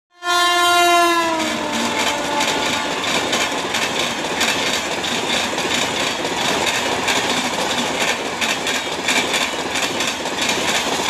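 Electric locomotive horn sounding once for about a second, its pitch dropping as the engine passes, then a passenger train rushing by at speed with a steady rattle and clatter of wheels over the rail joints.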